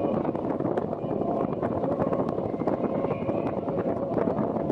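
Racing powerboats' engines running at high revs as the boats speed past, a steady drone.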